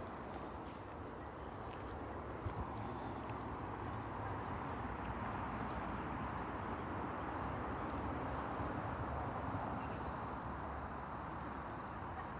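Steady outdoor rushing noise, growing a little louder through the middle and easing off near the end, with a few faint ticks.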